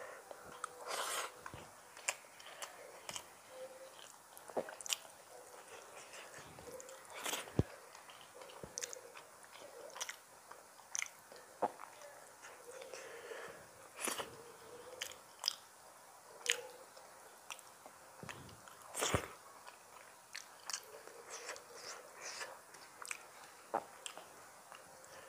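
Close-miked chewing of a person eating rice and curry by hand, with many irregular soft clicks and smacks.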